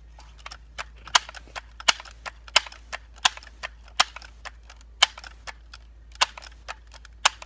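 Multi-pump pneumatic air rifle being pumped up: a run of sharp mechanical clacks, a loud one about every second with lighter clicks between.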